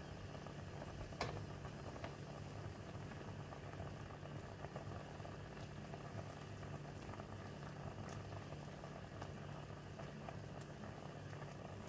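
Mulberries and sugar boiling hard in a pan for mulberry preserve: a steady bubbling with many small pops and one sharper pop about a second in, over a steady low hum.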